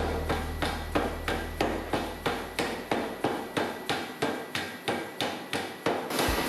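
Hammer blows on hot steel during forging, evenly spaced at about three to four a second.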